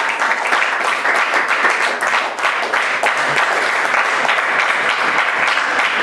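Audience applauding, many hands clapping at a steady level.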